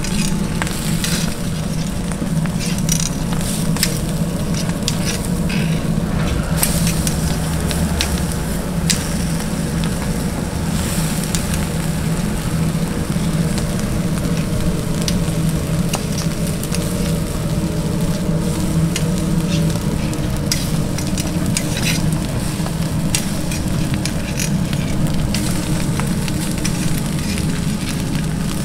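Fish sizzling and crackling on a grill over a briquette fire, a dense run of small pops and ticks, over a steady low hum.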